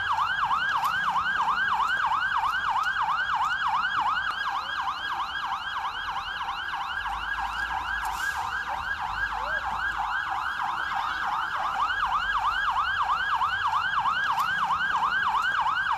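Emergency vehicle siren on a fast yelp, sweeping up and down about three times a second without a break.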